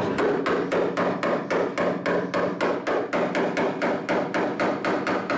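Hammer striking the steel of a car door in a fast, even run of blows, about four a second, as the door skin is worked off.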